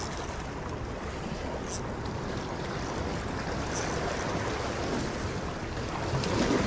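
Sea waves washing and splashing against breakwater rocks, with wind noise on the microphone and a few brief hissing splashes; it grows a little louder near the end.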